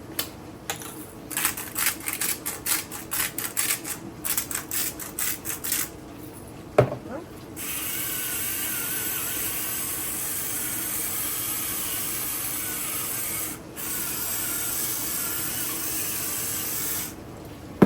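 Salt being ground over the food: a quick run of rasping clicks from a salt grinder, about five a second, followed by a steady hiss lasting about nine seconds.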